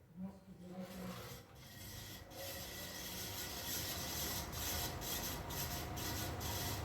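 Tron Eco Rio ceiling fan running, its noise building over the first couple of seconds and then holding steady, with a rubbing, whooshing sound that pulses about three times a second.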